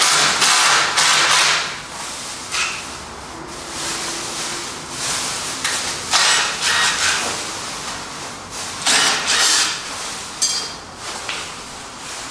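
Clear plastic protective wrap crinkling and rustling as it is pulled off a new scooter, in several loud bursts with quieter rustling between them.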